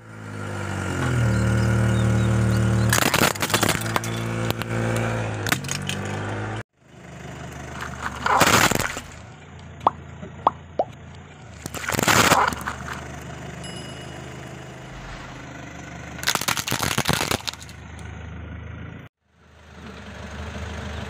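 A car's tyres rolling over plastic toys, cracking and crunching them, with the car's engine running steadily underneath. The sound is cut between several clips, each with one or more loud crunches.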